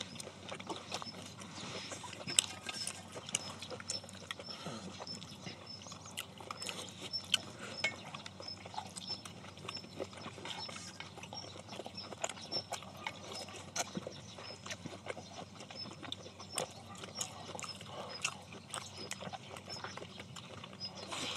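Close-miked eating sounds: people chewing and slurping saucy stir-fried pork, with wooden chopsticks clicking irregularly against stainless steel bowls.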